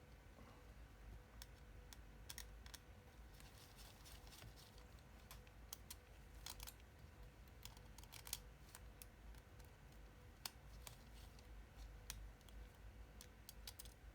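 Faint, scattered small clicks and taps from hand tools working on an e-reader, over a low steady hum.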